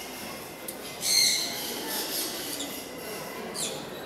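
Golden-breasted starling calling: a loud, harsh squawk about a second in and a shorter call falling in pitch near the end.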